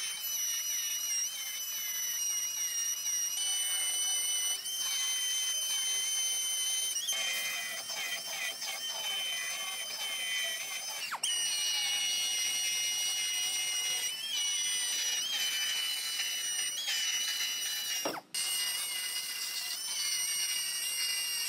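Air-powered narrow-belt sander running with a steady high whine as it grinds through steel bedside sheet metal. The pitch dips briefly several times, and the tool cuts out for a moment about three-quarters of the way through.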